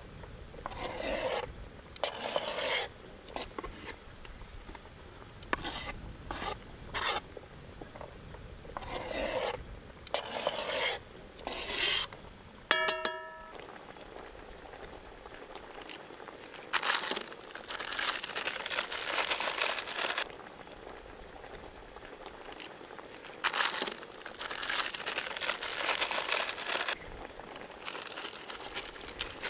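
Cooking at a pot of chicken: a run of short scrapes and knocks as the pieces are stirred with a wooden spatula and ingredients go in, a brief ringing tone a little before the halfway point, then two longer rustling stretches of a few seconds each.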